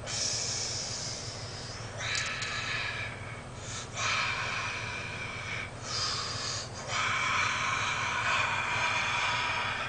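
A person breathing hard through long, hissy exhales under exertion, about five breaths with short pauses between them.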